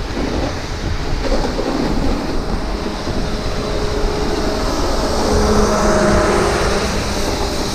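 Snowboard sliding and carving over hard-packed snow, a steady rumbling scrape mixed with wind noise on the microphone.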